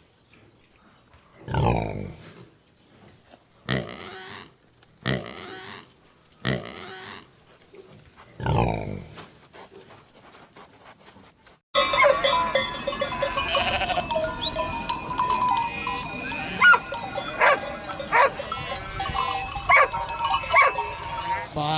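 Farm animals calling: several separate calls, some sliding down in pitch, then about halfway a sudden switch to a busy mix of overlapping calls, ringing tones and clicks.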